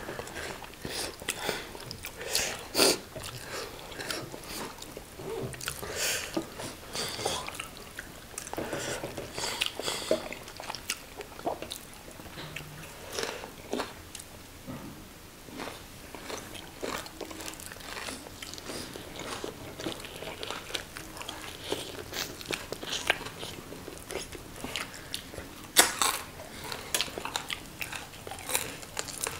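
Close-miked chewing and crunching of fried tilapia: irregular wet mouth clicks and smacks with crisp crunches. A sharper crunch comes about three seconds in, and the loudest comes near the end.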